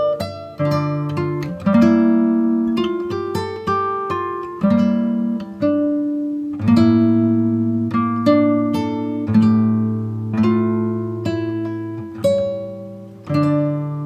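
Background music played on acoustic guitar: single plucked notes and chords, each struck and left to ring and fade, a new one roughly every second.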